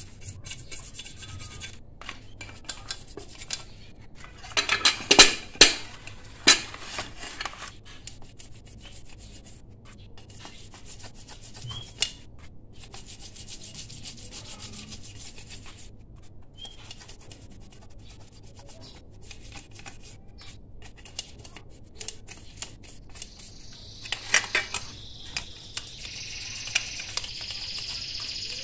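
Small stiff brush scrubbing softened paint off an aluminium Yamaha RX-King engine cover, in short spells of rubbing, with a few louder knocks and scrapes of the metal casing about five seconds in. Near the end a cricket starts chirping steadily.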